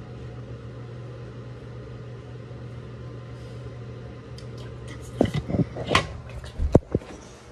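Steady low hum, then a quick run of sharp knocks and clatters about five seconds in, as things are handled at a bathroom counter.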